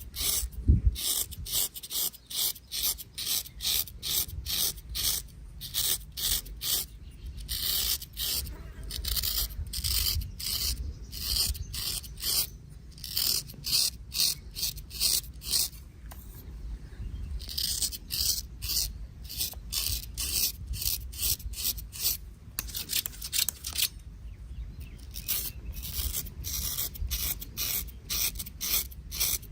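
A barber's razor scraping through hair and stubble in quick, short, repeated strokes, about two to three a second, with a few brief pauses.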